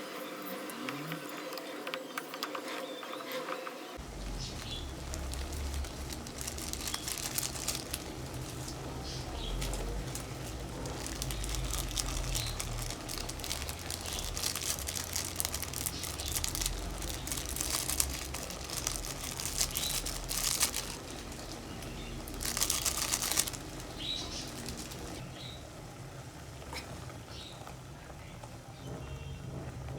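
Rustling and light clicking of things being handled, over a steady low rumble that starts abruptly about four seconds in.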